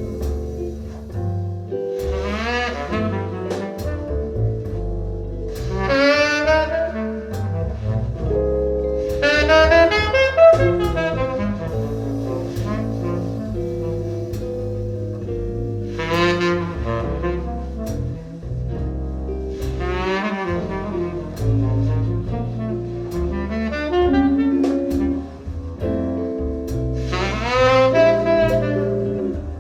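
Jazz recording with a saxophone playing phrases with vibrato over a double bass line, played back through an Audio Note I Zero push-pull valve amplifier and Audio Note AN-J-LX loudspeakers and picked up in the room.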